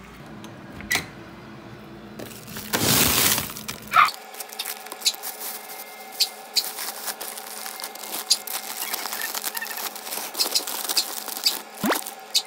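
Light clinks and clicks of small hard objects being handled, with a short rustling noise about three seconds in and a sharp click just after it.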